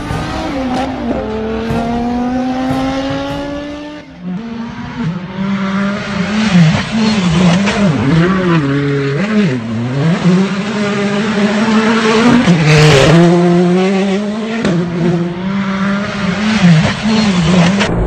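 Hyundai i20 R5 rally car's turbocharged 1.6-litre four-cylinder engine driven hard on gravel. Its pitch climbs and drops again and again with gear changes and throttle lifts, over the hiss of tyres on loose gravel. About four seconds in, the sound changes abruptly.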